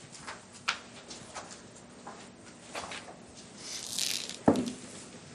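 Handling noise as a person settles in at a desk fitted with microphones: scattered small clicks and rustles, a brief rustle, then a single loud thump about four and a half seconds in.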